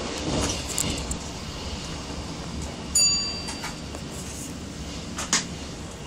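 A train running, heard from the driver's cab: a steady rumble with wheel clicks over the switches in the first second. About three seconds in, a short bright bell-like chime rings and dies away, and a sharp knock comes a little after five seconds.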